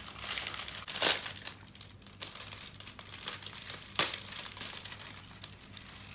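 Thin plastic bag of foam (floam) beads crinkling as it is squeezed and shaken to pour the beads into a bowl of slime, with two sharp louder crackles, about a second in and about four seconds in.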